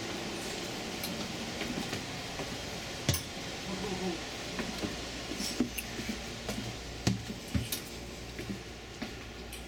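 Footsteps and irregular knocks and rattles as someone walks down a Superliner railcar's interior stairs into the lower level, over a steady low hum.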